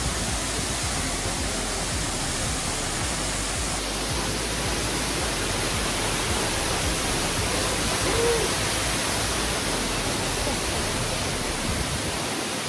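Steady rushing of a waterfall, water pouring down in an even, unbroken noise.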